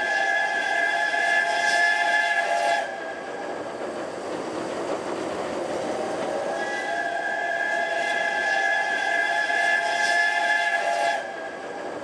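Steam whistle of the JNR Class 8620 steam locomotive 58654 blowing two long blasts. The first ends about three seconds in; the second starts a few seconds later and holds for about four and a half seconds. Between the blasts there is a steady rushing noise from the running train.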